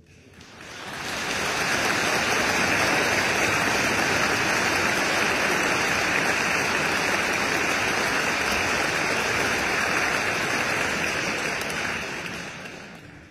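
Concert audience applauding steadily, swelling up over the first second or so and dying away near the end.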